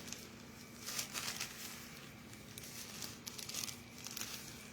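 Package wrapping crinkling and rustling in short, irregular bursts as it is handled and opened by hand.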